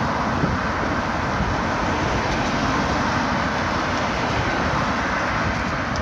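Steady rushing noise of wind on a handheld phone's microphone while riding a bicycle.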